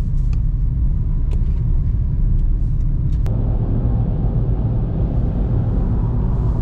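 Car driving along a road, heard from inside the cabin: a steady low rumble of engine and tyres. About three seconds in there is a click, and after it the noise turns fuller and harsher.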